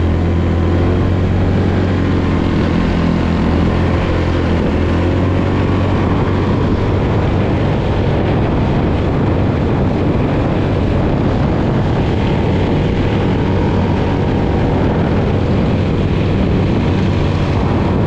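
Small automatic belt-drive (CVT) scooter engine held at wide throttle, droning steadily as it climbs a steep slope. A low even hum for the first few seconds gives way to a rougher, noisier running sound.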